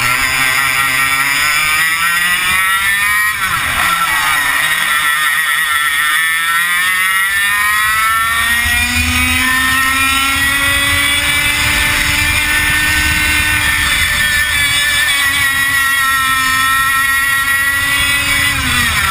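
Onboard sound of a 100cc two-stroke racing kart engine running at race speed. Its pitch drops sharply under braking about three and a half seconds in, then climbs slowly for about ten seconds as the kart gathers speed, eases and rises again, and falls once more near the end.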